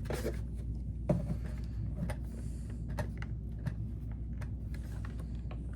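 Irregular sharp clicks and taps of a weather radio's buttons being pressed and its case handled, over a steady low hum.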